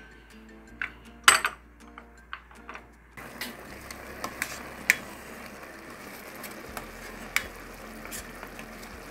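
Lid knocking against a rice cooker's metal inner pot as it is closed, the loudest knock about a second in; then a white rice paddle stirring cooked rice in the pot, with light scrapes and taps on the metal over a steady faint hiss.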